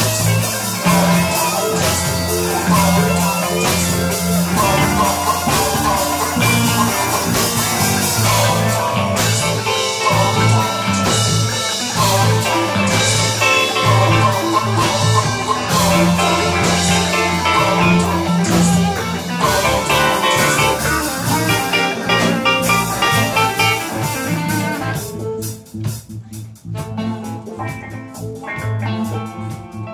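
Instrumental jam-session music: held bass notes under a dense band texture; about 25 seconds in it thins out to sparser, percussive playing.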